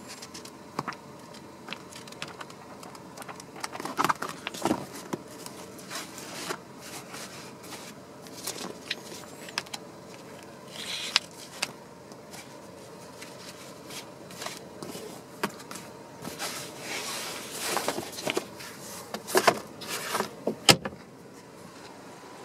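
Paper booklets and a document wallet being handled: pages flipping and sliding, with scattered rustles and taps and a sharp click near the end.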